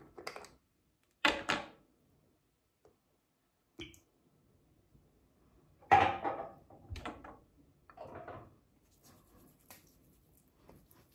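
Toiletry containers being handled: the aftershave balm bottle and its cap opened and set down, giving a few short clicks and knocks, a quick double knock early on and the loudest knock about six seconds in.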